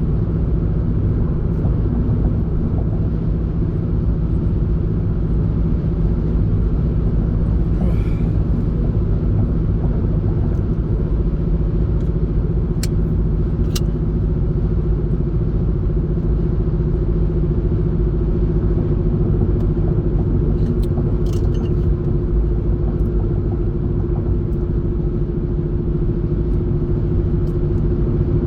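Steady low road and engine rumble inside a car cruising at highway speed, with a constant hum running through it.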